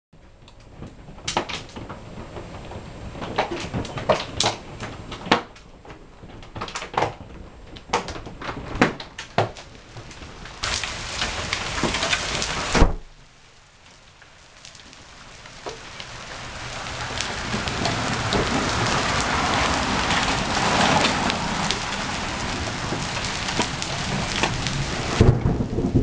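Hailstorm: hailstones striking the window and roof as scattered sharp knocks over a rush of hail and rain. The sound breaks off sharply just before the middle, then builds back into a dense, steady rush of falling hail and rain.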